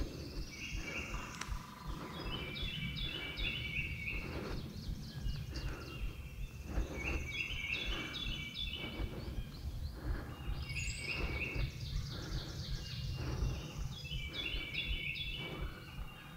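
Songbirds singing in spring woodland, the same quick, stepped song phrase repeated in several bouts, over a steady low rumble.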